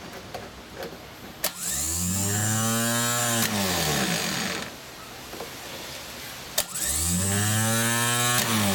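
Starter motor from a GM V8, bench-run straight off a battery through jumper cables. Twice it clicks as it is energised, then whirs up to speed, spins freely for a second or two and winds down.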